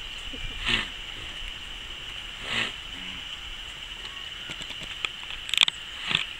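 Male llama alarm calls: two short, shrill, pitched calls about two seconds apart. Near the end come a few sharp clicks and knocks.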